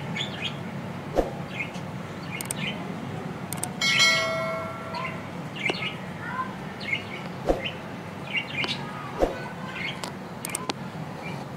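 Small birds chirping off and on, short high calls scattered throughout, over a steady low hum. A few sharp clicks stand out, and a chime-like ring sounds about four seconds in and fades.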